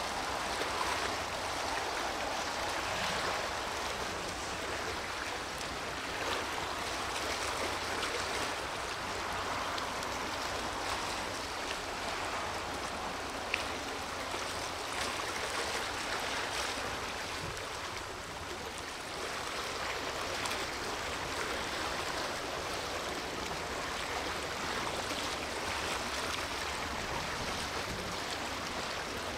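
Steady rushing seaside noise with a low rumble beneath it, and a single faint click about halfway through.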